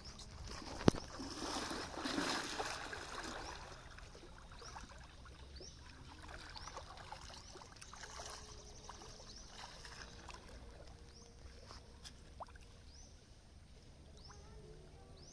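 River water splashing and dripping as a cast net is hauled in by hand from the bank, loudest in the first few seconds, with one sharp knock about a second in. From about four seconds on, a short high falling chirp repeats roughly once a second over faint water trickling.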